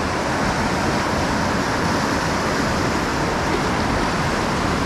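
Sea surf washing over and around shore rocks: a steady, unbroken rush of water.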